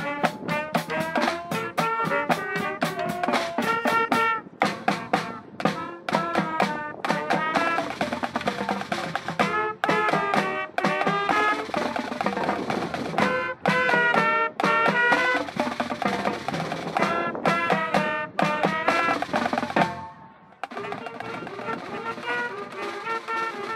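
High school band playing a lively up-tempo tune: saxophones, clarinets and brass over a drum kit, marching tenor drums and electric bass. About twenty seconds in the drums stop and the band holds a long chord.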